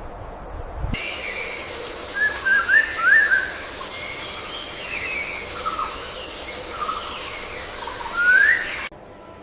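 Birds chirping: short chirps and quick rising whistles over a steady hiss, starting about a second in after a low rumble and cutting off abruptly near the end.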